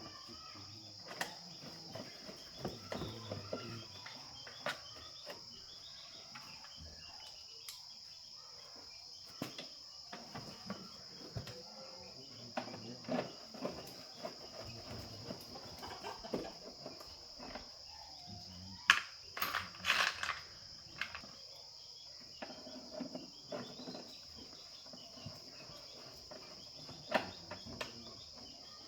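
Steady high-pitched chirring of insects, crickets or cicadas, with scattered clicks and knocks of hand work, a cluster of louder knocks about two-thirds of the way through.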